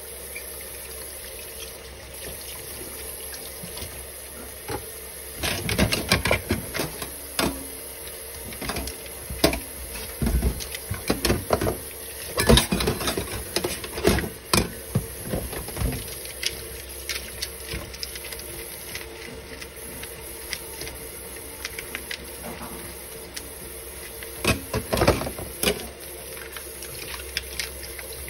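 Kitchen faucet running steadily into a stainless steel sink during hand dishwashing, with several bursts of clatter and knocks as plastic dishes and spoons are handled and rinsed under the stream.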